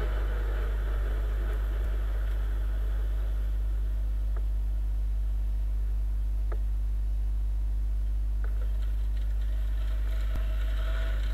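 Onboard ride sound of a Viper 200 motorcycle under way: a steady low rumble of engine and wind. Near the end, a rougher rattling road noise joins in as the tyres roll onto cobblestones.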